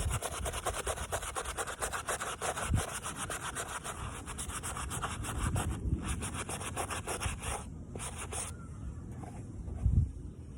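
A brush scrubbing a sneaker in rapid back-and-forth strokes, a scratchy rubbing that stops about eight and a half seconds in. A thump near the end.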